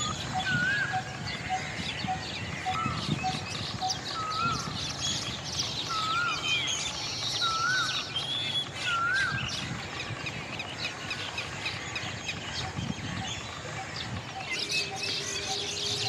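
Several birds calling at once: short rising-and-falling chirps every second or so, a single note repeated evenly about twice a second, and busy high-pitched chatter behind them.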